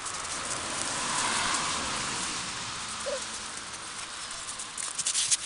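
Samoyed puppies' paws scuffling and crunching in snow as they play, a steady crackly patter with a burst of sharper crunches near the end.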